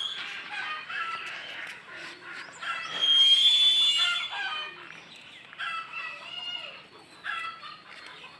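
Chickens calling: a rooster crows once about three seconds in, the loudest sound, followed by shorter repeated calls.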